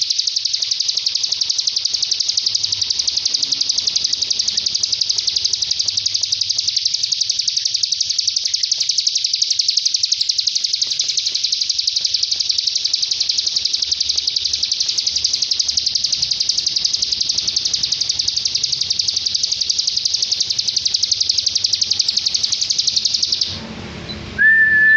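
A cigun songbird's 'tembakan' song: a fast, continuous, high-pitched trill held at an even level, the kind of recording used as masteran to teach other songbirds. It stops about 23 seconds in, followed by a short steady whistle tone.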